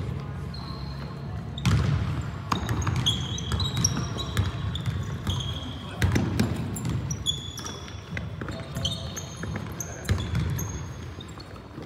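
Pickup basketball on a hardwood gym floor: many short, high sneaker squeaks as players cut and stop, over the thuds of the ball bouncing and a few sharper knocks, with indistinct voices of players.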